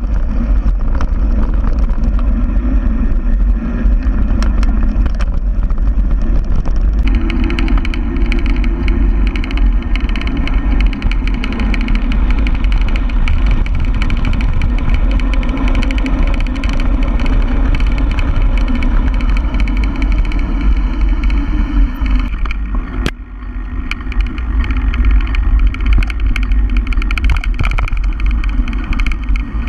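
Wind buffeting an action camera's microphone during a mountain-bike descent, with tyre rumble on the dirt and frequent small knocks and rattles over bumps. It drops briefly about two-thirds of the way through.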